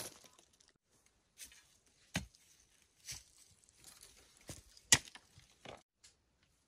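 Scattered single dull thuds and soft rustling of outdoor digging and movement in dry undergrowth. The sharpest thud comes about five seconds in.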